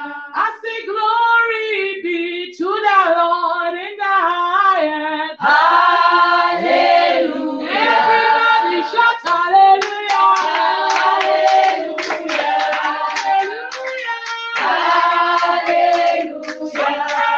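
A group of women singing a worship song together, with hand clapping joining in about ten seconds in and keeping time to the end.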